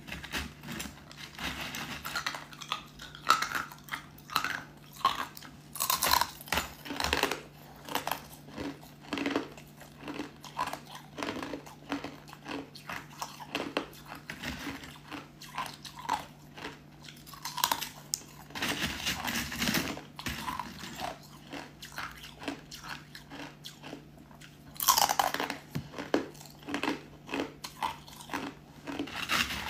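Thin flakes of white ice crackling and clinking as fingers stir and press them in a tray, with a few louder crunches.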